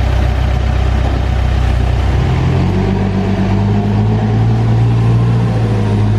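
JCB backhoe loader's diesel engine running at low speed, then revving up about two and a half seconds in and holding at a higher, steady speed.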